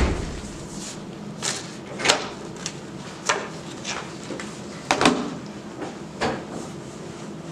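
Sheets of paper handled on a tabletop: a series of short, sharp rustles and knocks as papers are shuffled and a stack of papers and a folder is set down on the table.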